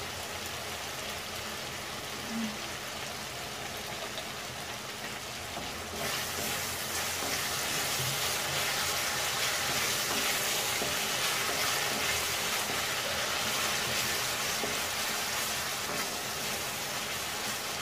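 Prawns frying in oil and sauce in a pan over a high flame: a steady sizzle that grows louder and brighter about six seconds in.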